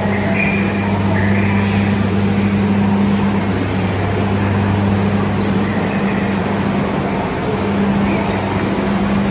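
A ferry's engines running steadily: a loud, even low drone with a constant hum.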